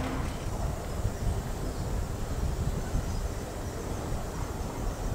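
Low, unsteady outdoor background rumble with no distinct event.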